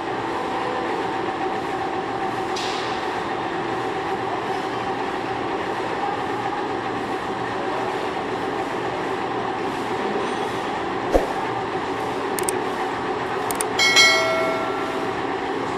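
Metalworking machinery running with a steady hum during machining of a screw conveyor. There is a sharp click about eleven seconds in, and near the end a short ringing clink of metal on metal.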